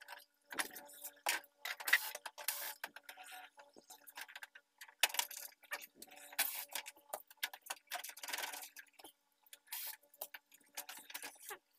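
Irregular plastic clicks, taps and rattles as the plastic back cover of a Sony 32-inch LCD TV is unscrewed and handled, then lifted off near the end.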